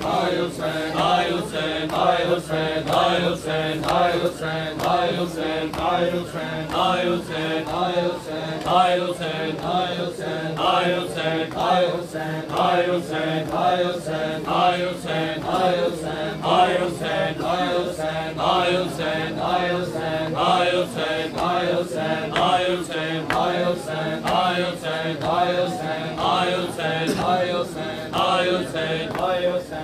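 Men's voices chanting a Punjabi noha (Shia lament) in unison, kept in time by a steady beat of open-handed chest-beating (matam), roughly two strikes a second.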